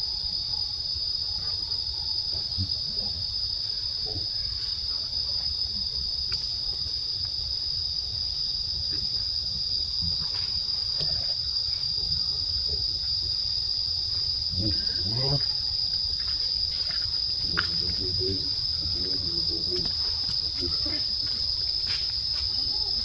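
Steady high-pitched drone of an insect chorus, unbroken throughout, with faint short sounds from nearby here and there.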